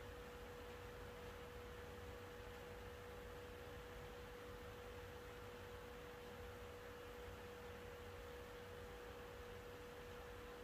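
Near silence: room tone with a faint, steady single-pitch electrical hum over low rumble and hiss.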